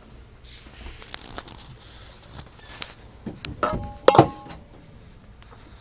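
Scattered light clicks building to a few sharp clinks with a brief ring, loudest about four seconds in: a glass reptile terrarium being handled and knocked as it is opened.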